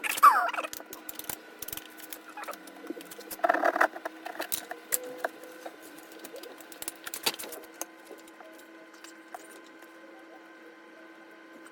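Hand demolition of a wall: irregular scraping, tapping and small bits of debris clattering, with a louder flurry near the start and another about three and a half seconds in, over a faint steady hum.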